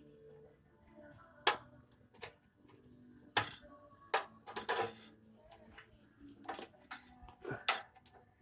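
A few irregular sharp clicks and taps, the loudest about one and a half seconds in: plastic wiring-harness clips being worked out of a 1968 Camaro's steel radiator support.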